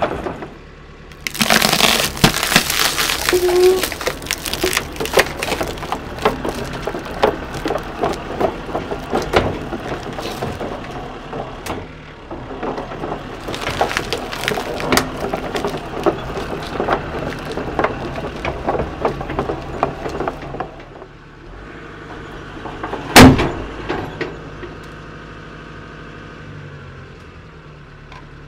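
Excavator's steel tracks rolling over and crushing plastic objects: a long run of crackling and crunching plastic. After a short lull comes one loud sharp bang, and then the excavator's engine runs steadily.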